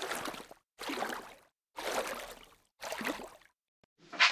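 Rushing water sound in short bursts about once a second, with brief silences between them, followed near the end by one sharper, louder burst.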